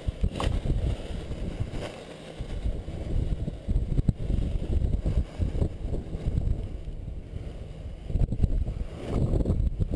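Wind buffeting an action camera's microphone in paragliding flight: an uneven low rumble that swells and fades in gusts, louder near the end.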